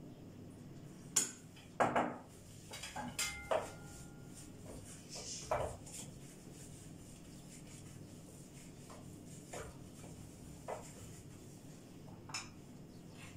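Kitchenware clattering: metal trays and utensils knocked and set down on a countertop, a quick run of clatters in the first few seconds with a brief metallic ring among them, then fainter single knocks a second or two apart, as a pizza tray is made ready for greasing with oil.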